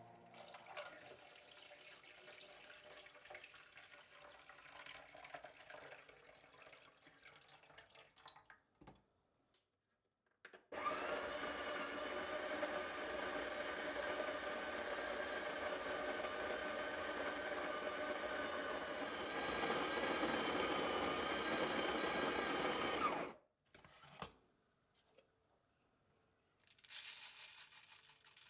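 A small electric motor runs steadily for about twelve seconds, starting abruptly about eleven seconds in and cutting off suddenly, after quieter scattered handling sounds.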